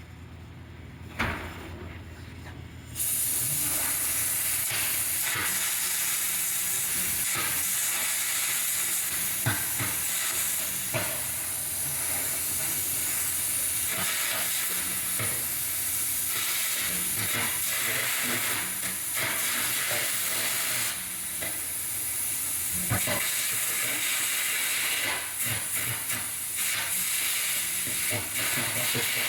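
A cutting torch cutting steel with a steady, loud hiss and crackle that starts about three seconds in and dips briefly a few times near the end, over a low machine hum.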